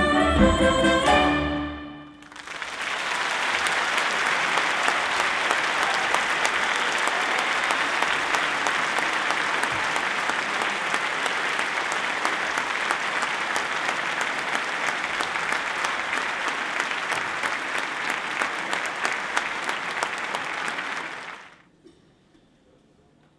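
The last chord of a children's choir and instrumental ensemble dies away about two seconds in. An audience then applauds steadily for about twenty seconds before the applause cuts off suddenly, leaving near quiet.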